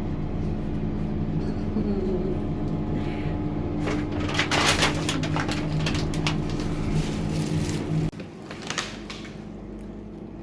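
Elevator car running with a steady hum and some rattling. The hum cuts off suddenly about eight seconds in as the car stops at its floor.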